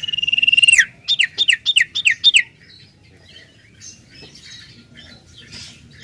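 Common iora (sirtu/cipoh) singing. It gives one loud, level whistle held for nearly a second that drops at its end, then a quick run of six downward-slurred whistled notes, about four a second. After that there are only faint chirps.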